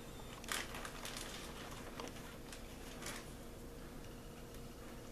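Clear plastic zip-top bag crinkling in a few short, faint rustles as dolls are pulled out of it, the clearest about half a second in and around three seconds in, then quiet room tone.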